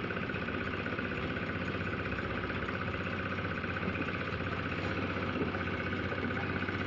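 An engine running steadily at idle, an even hum with a fast low throb and no change in speed.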